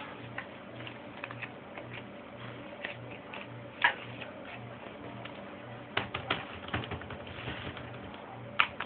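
Scattered clicks and taps from handling the Samsung N120 netbook, its keys or case being pressed, with a few sharper clicks standing out, over a faint low hum that pulses about three times a second.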